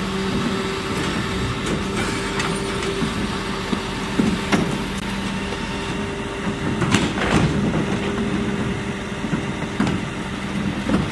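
Zoeller rear-loading garbage truck running with a steady engine and hydraulic hum while its lifter tips and lowers a wheelie bin, with several sharp knocks and clatters of the plastic bin against the lifter.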